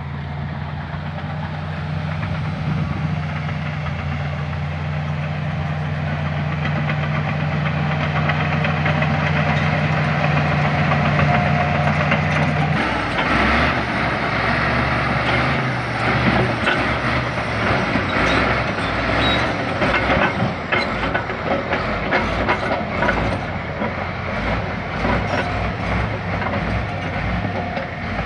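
LiuGong bulldozer's diesel engine running with a steady note. About halfway through, the engine note changes and a rapid, irregular clatter of knocks from the steel crawler tracks sets in as the dozer moves.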